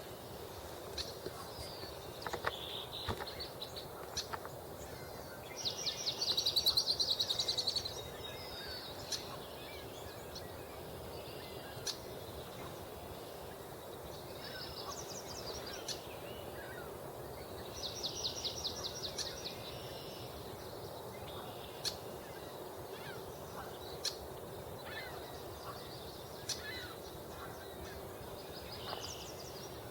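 Marsh birds singing and calling: a songbird repeats a high, fast trill about two seconds long roughly every twelve seconds, among scattered short chirps and calls.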